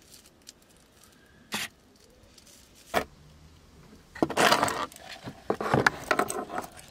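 Camera-handling noise inside a car: a couple of single knocks, then about four seconds in a couple of seconds of rustling, scraping and clattering as the camera is grabbed and moved about.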